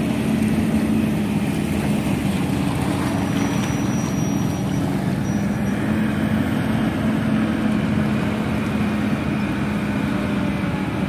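Steady drone of a small boat's engine running at constant speed, with a rushing hiss over it.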